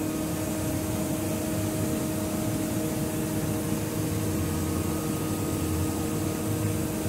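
Three-axis CNC machining center (UDM-2216) running with no cutting, a steady hum with several steady tones over a low rumble.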